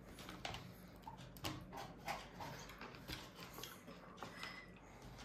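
Faint, irregular small clicks and taps from babies eating, over a low steady hum.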